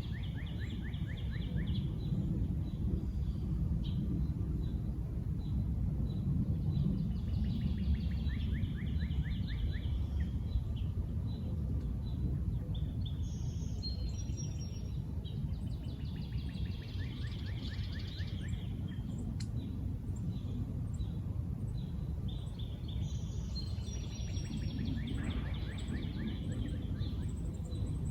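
A songbird repeats a song of rapid, evenly spaced notes about every eight seconds. Another bird gives a few short high notes. A steady low background rumble runs underneath.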